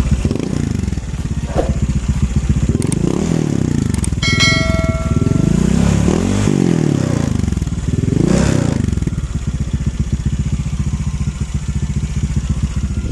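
Honda Click 150 scooter's single-cylinder engine breathing through a Replica Pro ratlook silent exhaust, revved in about five short blips that rise and fall in pitch, then settling to a steady idle from about nine seconds. A rattle comes from the loose rear tire hugger.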